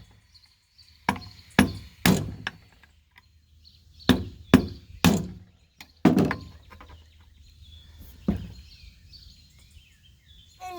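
Sharp knocks or taps from hand work on a chainsaw's starter assembly: two quick sets of three about half a second apart, then two single knocks.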